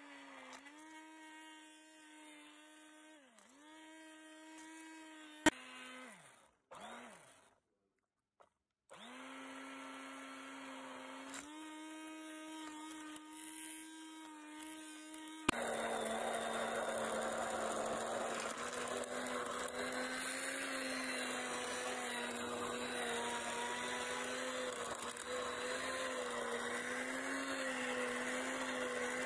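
Electric stick hand blender running in a beaker of wet tamarind-and-mint chutney mixture, a steady motor hum. It winds down and stops about six seconds in, starts again about three seconds later, and from about fifteen seconds in runs louder with a churning, sloshing noise as the blade works through the liquid purée.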